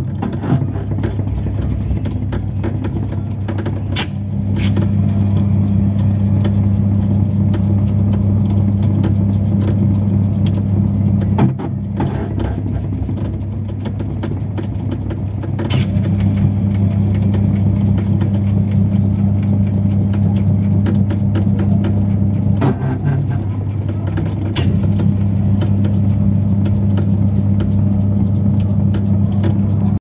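Top-load washing machine's motor running with a steady low hum, cutting out twice for a few seconds and starting again, with a sharp click at each change.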